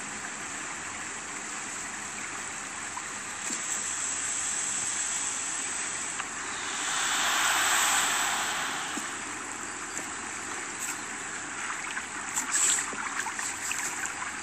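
Steady rushing outdoor noise, swelling louder for about two seconds around the middle before settling back, with a few faint clicks near the end.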